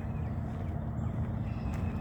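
Footsteps walking along a woodland trail over a steady low rumble, with faint bird calls in the background.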